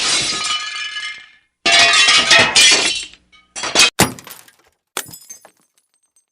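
Glass breaking in a run of separate smashes, each a sudden crash followed by tinkling shards; the first few are long and loud, the last ones short and fainter.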